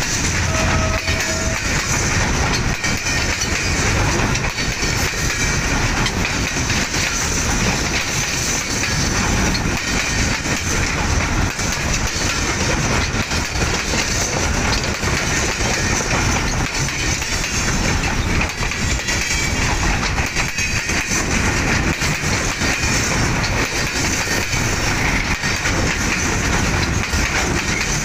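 Freight train wagons rolling past close by, their steel wheels clattering over the rails in a steady, continuous rumble.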